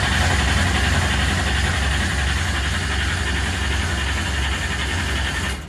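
Starter cranking a big-block Chevy 496 stroker V8 steadily with the ignition switched off so it does not fire, to build oil pressure and circulate fluid; the cranking stops near the end.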